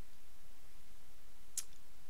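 Steady background hiss with a single short click about one and a half seconds in.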